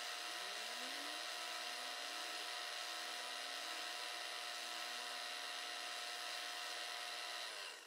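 Milling machine spindle running with an end mill cutting the teeth of a metal workpiece: a steady machining hiss and whine, with a few faint rising tones about a second in. It cuts off just before the end.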